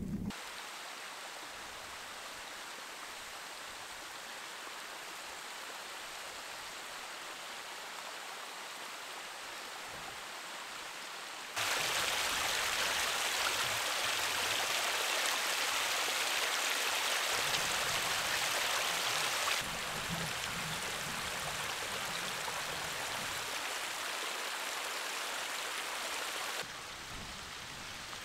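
Running water of a stream, a steady rush, broken by abrupt cuts into a few separate takes; loudest between about 12 and 20 seconds.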